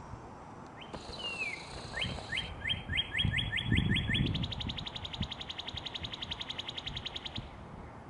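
Northern cardinal singing: a falling whistled slur, then a run of quick rising whistles that speeds up into a fast, even trill lasting about three seconds.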